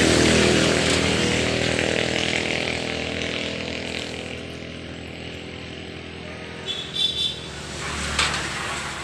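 A motorcycle-type engine running and slowly fading away, like a vehicle moving off into the distance. Near the end come a few short metallic clinks of parts in a steel tray.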